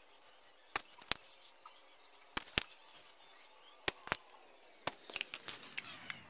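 Spring-loaded desoldering pump (solder sucker) clicking as it is cocked and fired over a capacitor's solder joints: sharp clicks, mostly in pairs about a second apart, with a run of lighter clicks near the end.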